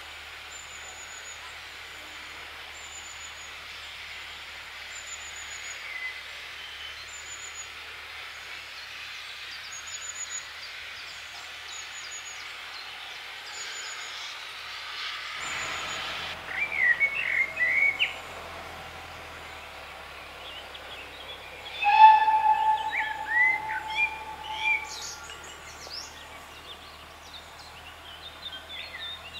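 Steam locomotive standing at a station: a steady hiss of steam, with a small bird repeating a short high chirp about once a second. In the second half a loud warbling trill sounds, then a steam whistle blows one steady note for about two and a half seconds, the loudest sound, with birds chirping around it.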